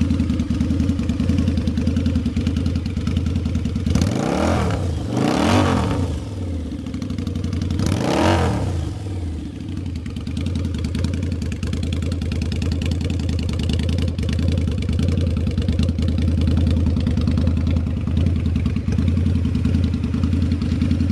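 2007 Harley-Davidson V-Rod Night Rod's liquid-cooled Revolution V-twin idling steadily. The throttle is blipped three times between about four and nine seconds in, and each rev rises and falls back to idle.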